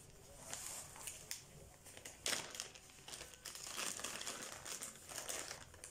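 Thin clear plastic bag crinkling in short, irregular rustles as it is handled.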